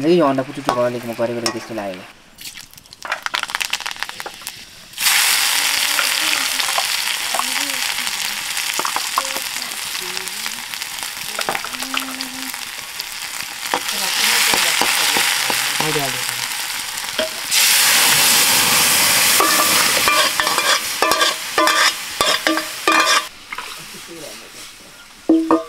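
Eggs frying in hot oil in a pan: a loud sizzle starts suddenly about five seconds in, swells again twice, and drops off near the end. There are clicks and scrapes of stirring in the first couple of seconds.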